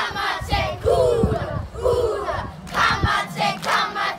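A group of primary-school children chanting a haka in unison: loud shouted words in short rhythmic bursts, with a couple of sharp hits about a second in and three seconds in.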